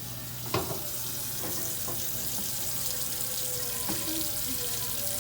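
Kitchen faucet running steadily into a pot, filling it with water for boiling pasta, with a couple of faint knocks.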